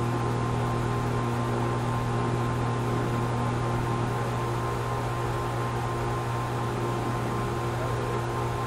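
A steady mechanical hum with several constant tones over an even rushing noise, from a running motor. It holds at the same level throughout.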